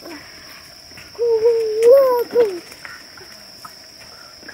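Insects drone steadily at one high pitch. About a second in, a drawn-out hooting call holds for about a second, rises slightly, then drops away.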